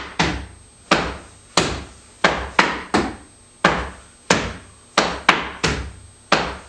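Dance shoes striking a wooden floor in flamenco tangos marking steps: about a dozen sharp strikes in an uneven rhythm, each ringing out briefly in the room.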